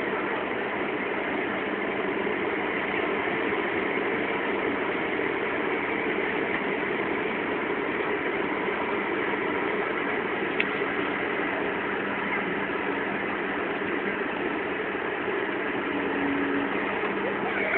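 Steady drone of a large container ship's engines as it passes close by, with one short click partway through.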